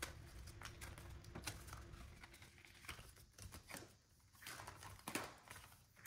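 Faint handling sounds: paper bills being gathered and the clear plastic envelope pages of a ring binder being turned, a few soft clicks and rustles spread through.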